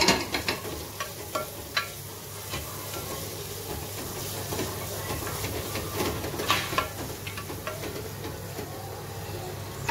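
Freshly added sliced onions sizzling in hot coconut oil, stirred with a spatula that scrapes and knocks against the nonstick pot. The sharpest knocks come right at the start, a few more in the first two seconds, and another cluster about six to seven seconds in.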